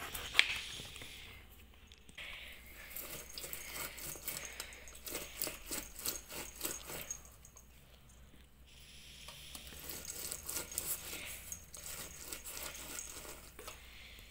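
A knife cutting oranges in half on a countertop, with a sharp knock about half a second in and then a run of small clicks and scrapes. Later, orange halves are twisted on a plastic hand citrus juicer, with a rasping squish and light clatter.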